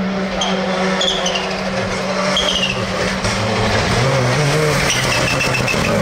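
Citroën C3 Rally2's turbocharged four-cylinder engine at speed, holding one steady note, then falling to a lower, uneven note about three seconds in. Short high chirps come and go over it.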